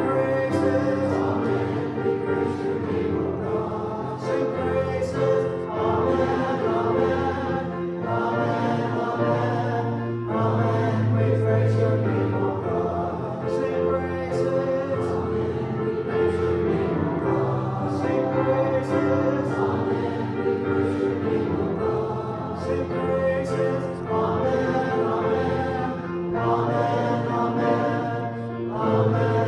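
Congregation singing a hymn together, in phrases of a few seconds each.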